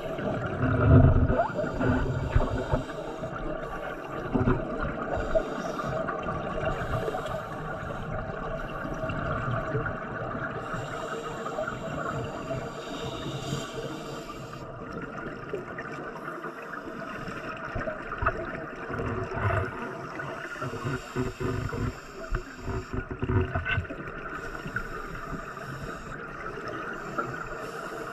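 Muffled underwater gurgling and bubbling from a scuba diver's breathing, heard through the camera's underwater housing, over a steady hum, with irregular low swells that are loudest about a second in.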